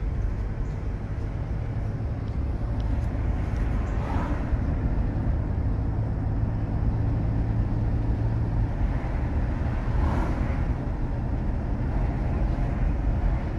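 Car driving along a street, heard from inside the cabin: a steady low rumble of road and engine noise, with a low hum that drops away about nine seconds in.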